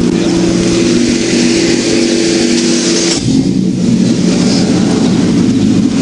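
A car engine idling steadily under a rushing, wind-like noise on the microphone. About three seconds in, the hum changes as some of its tones drop out.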